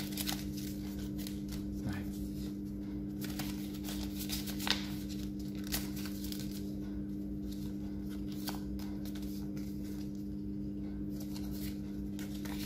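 Sheet of paper rustling and crinkling as it is folded and creased into an origami crane, in short scattered crackles. A steady low hum sits under it.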